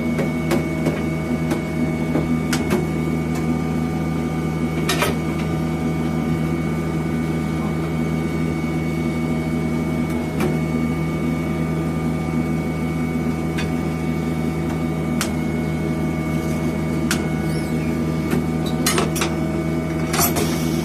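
Steady electric motor hum with a few sharp clicks and knocks, the loudest cluster near the end.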